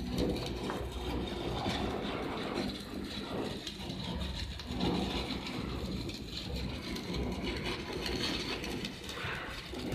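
Stick-welding arc from a 3.2 mm Kobe Steel electrode on galvanized pipe, crackling and hissing steadily over a low hum.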